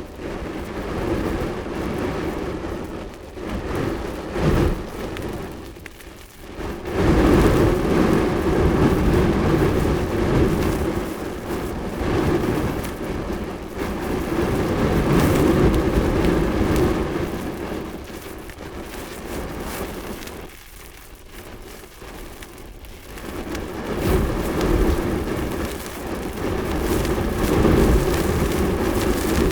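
Large fire burning with a continuous rushing noise that surges and fades: it swells strongly about seven seconds in, dips after twenty seconds, and swells again near the end. There is a sharp crack early on.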